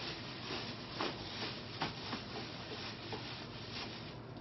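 Soft handling sounds: a plastic bag rustling and a few light clicks of plastic as the bag is fitted into the waste box of an automatic litter box.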